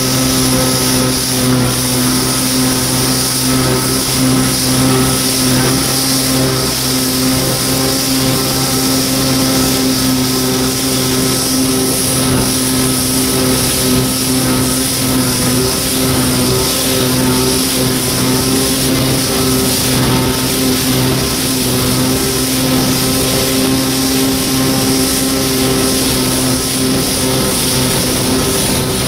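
1993 Kawasaki 650SX stand-up jet ski's two-stroke twin engine running steadily at cruising speed, with the hiss of water and spray rushing along the hull.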